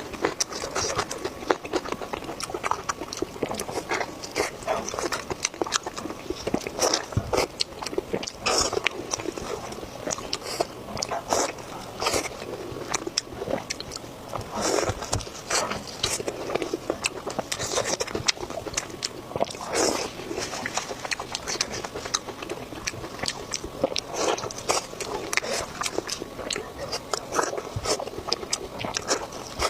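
Close-miked eating sounds: a person biting and chewing food, with many short wet clicks and smacks coming in quick, uneven succession.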